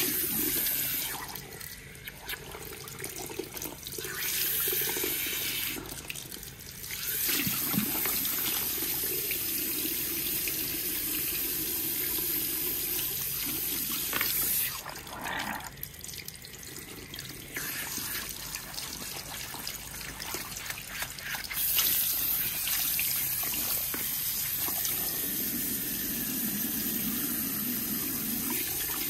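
Running water from a salon shampoo-bowl hand shower, spraying through wet hair and splashing into the basin during a rinse. The hiss of the spray drops away briefly several times and comes back.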